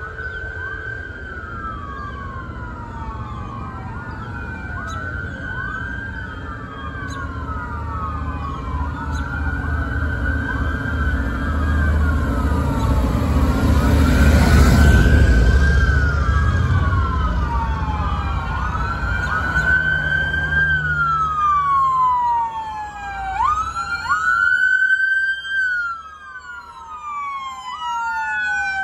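Police car sirens from a passing convoy of cruisers, many wailing at once in overlapping rising-and-falling sweeps. Engine rumble swells and is loudest about halfway through as police motorcycles pass.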